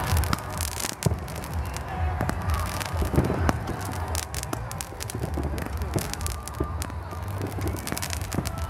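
Aerial fireworks shells bursting in the distance: a quick, irregular run of sharp pops and crackles over a low rumble.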